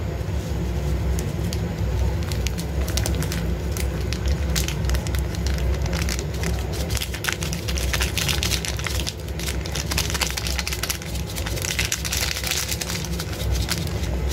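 Noodle soup boiling in a pot on a gas stove: steady bubbling and crackling over a constant low rumble from the burner.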